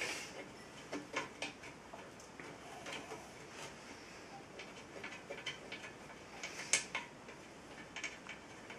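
Scattered light metallic clicks and taps from parts of a benchtop drill press being handled and tightened during assembly at the cast base, coming at irregular intervals, with the sharpest click past the middle.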